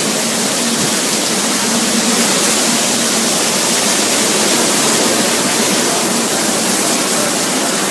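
Steady, loud rush of hurricane-force wind and wind-driven rain.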